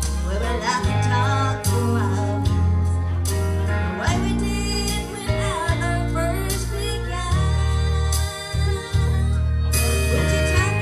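A woman singing a slow country song into a microphone over a backing track with guitar and a steady bass.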